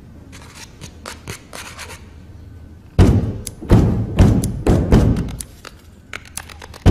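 Hands pounding on wooden lecture-hall desks: loud thumps, a few a second in an uneven rhythm, start about three seconds in after some faint tapping.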